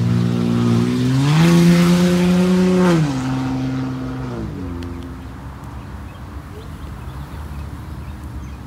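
A motor vehicle's engine revving: its pitch climbs about a second in, holds for a couple of seconds, then drops back, and the sound fades away over the last few seconds.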